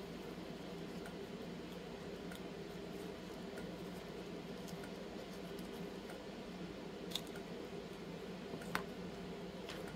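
Silicone mold being flexed and peeled off a freshly cured UV-resin heart shaker frame by gloved hands: faint squishing and rubbing with small ticks, and two sharper clicks near the end, over a steady low hum.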